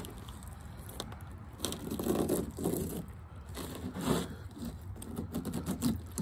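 Fillet knife cutting through a whiting along its backbone in several uneven strokes, with small sharp clicks.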